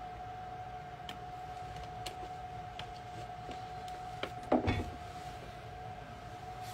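A steady electrical whine on one unchanging pitch, over a low hum, with a few faint clicks. About four and a half seconds in comes a brief clatter, a plastic water bottle being handled and set down.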